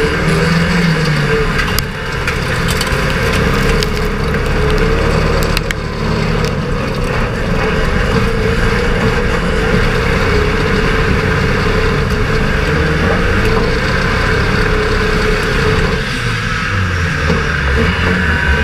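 Banger racing car's engine running hard and changing revs, heard from inside the stripped-out cabin, with loose bodywork rattling. Several sharp knocks and bangs in the first six seconds, typical of contact with other cars.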